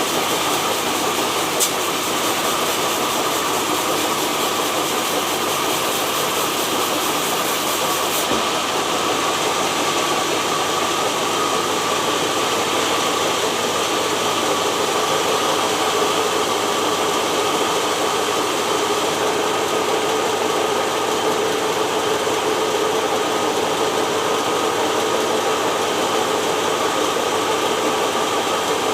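Sawmill machinery running steadily: a continuous mechanical drone with a steady whine, and one sharp click about one and a half seconds in.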